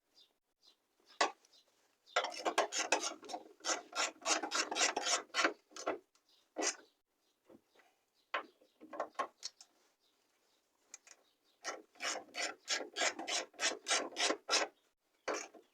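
Hand ratchet wrench clicking as bolts are turned: two long runs of quick, evenly spaced clicks, several a second, with a few single clicks between them.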